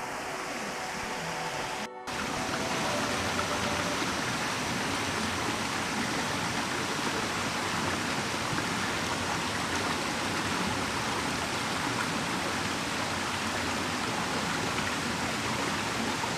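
Shallow rocky stream running, a steady rush of water over stones that starts after a brief break about two seconds in.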